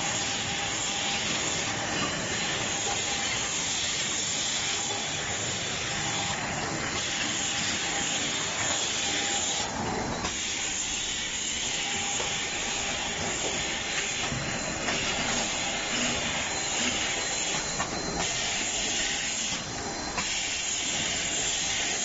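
Automatic vertical bottle packing machine running: a steady mechanical hiss with a faint held tone, and a few short bursts of sharper hissing every few seconds.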